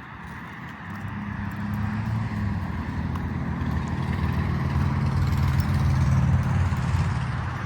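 A motor vehicle approaching on a road, its low engine hum and tyre noise growing steadily louder and loudest about six seconds in.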